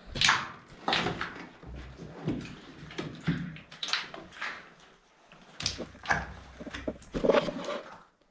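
Footsteps on the tunnel floor, irregular strides about one every half second to a second with scuffing between them, stopping abruptly near the end.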